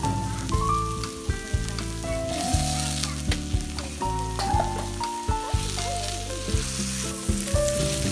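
Raw hamburger patties sizzling as they fry on a hot flat iron griddle, with sharp clicks and scrapes from a metal spatula against the plate.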